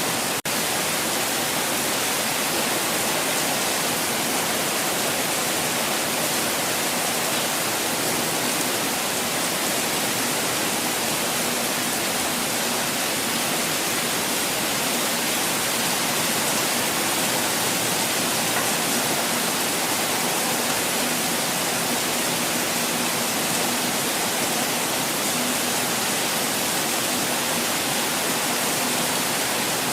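Falling water making a steady, even rush that does not change, apart from a momentary dropout about half a second in.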